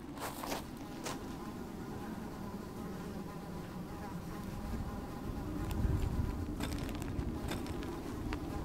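Flying insects buzzing steadily, with a few faint clicks and a low rumble about six seconds in.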